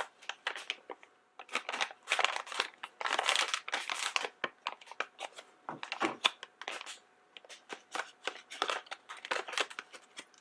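Blind-bag toy packaging crinkling and rustling in hands, in quick irregular crackles.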